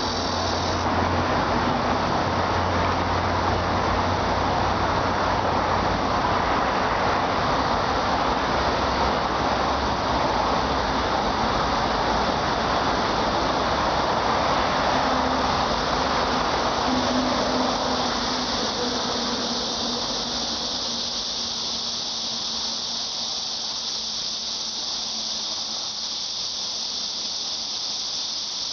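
Cicadas shrilling in a steady high-pitched drone, mixed with a louder broad rushing noise with a low hum underneath. The rushing noise eases off about 18 seconds in, leaving the cicadas more to the fore.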